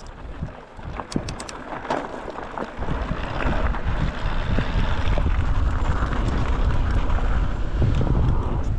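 Mountain bike tyres rolling over a dry dirt and gravel trail, with a few sharp clicks and rattles from the bike in the first two seconds. About three seconds in, wind buffeting on the chest-mounted action camera's microphone grows into a loud steady rumble.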